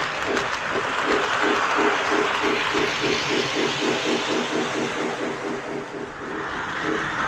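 Lionel LionChief 2-4-2 O gauge toy train running along the track, its motor and wheels humming under a steady rhythmic beat about five times a second that thins out near the end.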